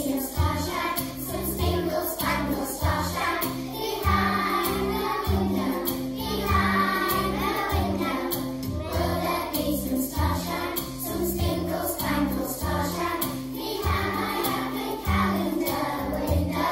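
A group of young children, five- and six-year-olds, singing a song together with musical accompaniment that carries a steady bass line.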